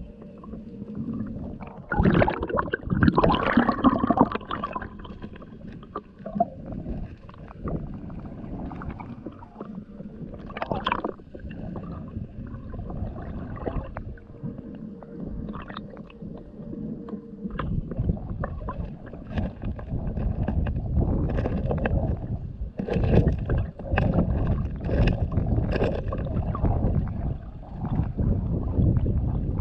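River water heard through a submerged camera: a muffled rushing and gurgling, broken by many irregular knocks and clatters, with louder stretches about 2 to 4 seconds in and again from about 21 seconds on.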